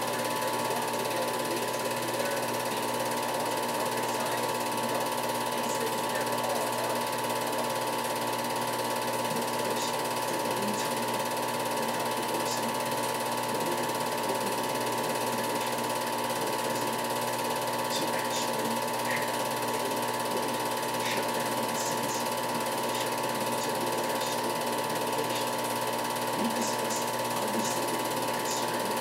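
Film projector running: a steady, even mechanical clatter of the film transport with a constant whine.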